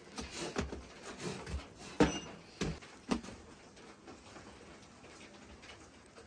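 A few short knocks and thuds as baked flatbreads are pulled off the wall of a clay tandoor and handled, the sharpest about two seconds in and two more within the next second; after that only a low background.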